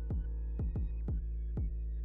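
Background electronic music with a steady deep bass and a kick-drum beat of about two thumps a second.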